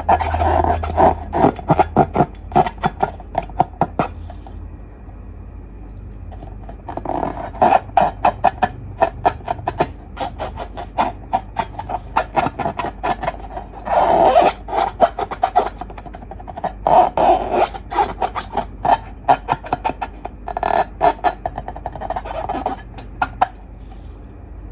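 Hands squishing and pressing slime: runs of sticky clicks and crackling pops in bursts, with short pauses between them.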